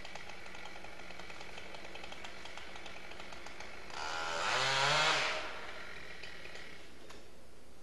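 Chainsaw revved once, about four seconds in, for a second and a half, its pitch rising and then dropping back, over a steady faint whine.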